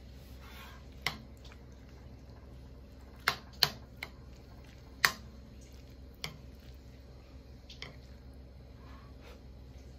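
Metal utensil clinking and scraping against a ceramic bowl while eating: a handful of sharp clicks, the loudest a quick pair about three and a half seconds in and another about five seconds in, over a low steady hum.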